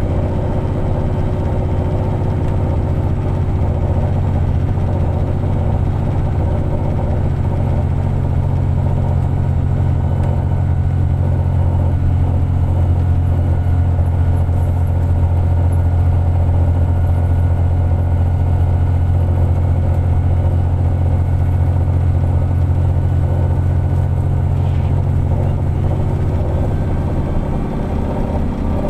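VDL DB300 double-decker bus engine running steadily under way, heard on board as a constant low drone with fainter steady whine tones above it; the engine is in limp mode and short of power. Near the end the drone drops away as the engine note changes.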